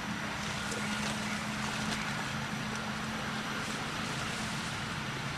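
A steady low motor hum under a constant hiss, with a few faint ticks.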